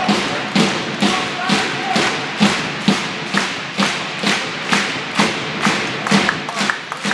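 Supporters' drum beating a steady, even rhythm of about two strokes a second in a sports hall.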